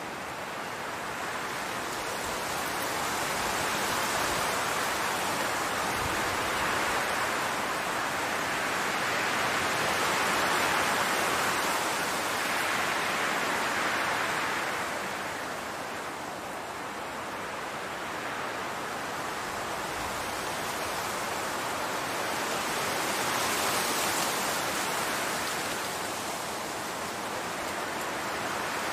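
Wind blowing across a field of grass and flowers: an even rushing noise that swells and eases every several seconds.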